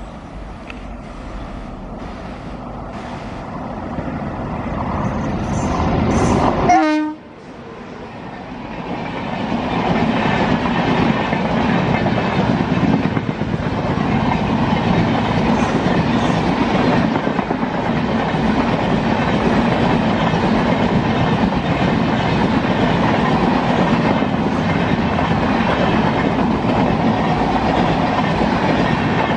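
Passenger train hauled by a WAP-7 electric locomotive approaching and growing louder, the sound breaking off sharply about seven seconds in. Then its LHB coaches run past at speed with a steady clickety-clack of wheels over the rail joints.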